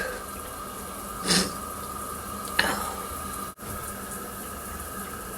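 A person sniffling twice, a little over a second apart, the second sniff falling in pitch, over a steady electrical hum. The sound drops out for an instant about three and a half seconds in.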